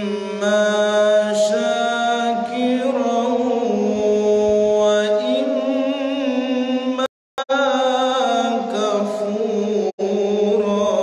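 A man reciting the Quran in melodic tilawah style, holding long notes with wavering, ornamented runs. The voice drops out briefly twice, about seven and ten seconds in.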